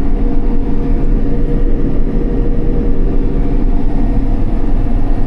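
Combine harvester running steadily while cutting wheat: an even, loud machine drone with a constant hum and no changes in speed.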